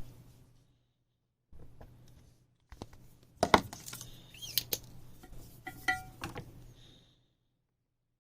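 Scattered small clicks and taps of hand tools and parts being handled on an electronics workbench during desoldering, with one sharper click about three and a half seconds in and a few brief chirps near six seconds.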